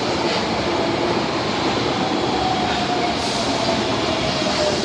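Osaka Metro 22 series subway train running alongside the platform, a steady rumble of wheels and car body with a faint tone sliding slowly down in pitch over the second half.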